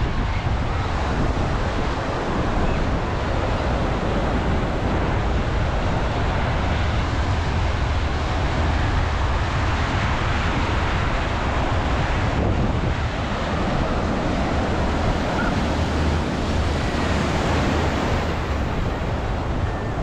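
Sea surf washing onto the beach in a steady wash of noise, with wind rumbling on the microphone.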